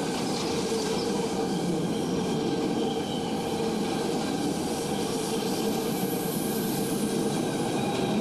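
Freight train cars rolling past at steady speed: the continuous rumble and rattle of steel wheels on rail, with no change in level.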